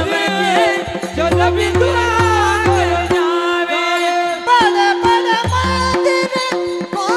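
Devotional kirtan singing: an ornamented vocal line that bends and wavers in pitch over a steady held drone note, with deep drum strokes that drop out for a stretch in the middle.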